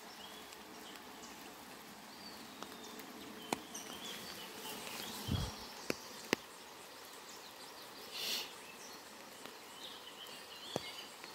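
Steady hiss of rain and rushing river water, with a few sharp ticks and faint high chirps scattered through it, a dull thump about five seconds in and a short hiss about eight seconds in.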